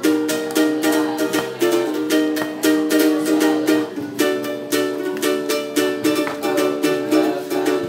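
Ukulele strummed in quick, even strokes, several a second, playing a run of changing chords without singing.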